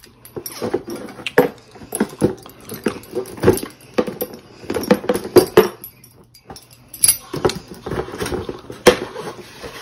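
Cardboard box and plastic packaging of a new headset being handled and pulled open: an uneven run of rustles, scrapes and small clicks.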